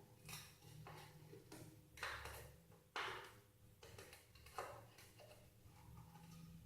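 Faint, irregular scrapes and clicks of a nail clipper multitool's small can-opener blade being levered around a can lid, with sharper clicks about three seconds in and again near the middle.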